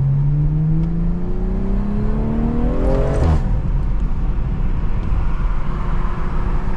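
BMW M340i's turbocharged 3.0-litre inline-six, stage 2 tuned with a catless downpipe, pulling hard with its note rising steadily for about three seconds. The note breaks off with a short sharp crack, like an upshift, and is followed by steady road and wind noise as the car cruises.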